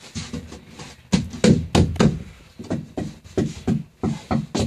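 A run of dull knocks and taps on wood, irregular, about two to three a second, starting about a second in.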